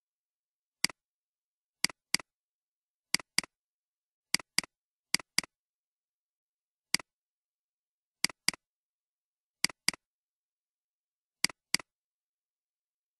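Computer mouse clicks: seven quick double-clicks and two single clicks, each sharp and short, with dead silence between them.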